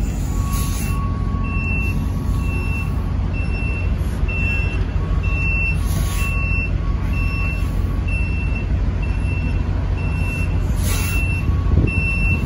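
Tractor-trailer's backup alarm beeping steadily, about one and a half short high beeps a second, over the low rumble of its diesel engine as the truck reverses. A few brief hisses come through at times.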